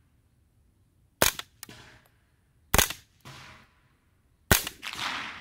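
Three single shots from a Colt AR-15 Sporter II carbine firing .22 LR through a subcaliber conversion bolt, about a second and a half apart. Each sharp crack is followed about half a second later by a fainter noisy tail. The tail after the third shot is longer and louder.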